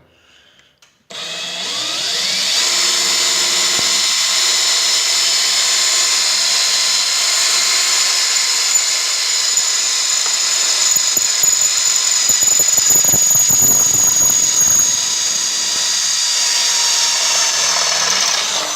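Porter-Cable 20-volt cordless drill starting about a second in and running steadily under load with a high whine, boring a hole through the metal snow blade with cutting oil. It stops just before the end.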